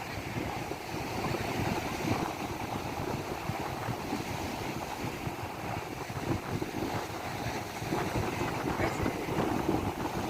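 Sea surf washing steadily onto the shore, with wind buffeting the microphone in low, gusty rumbles.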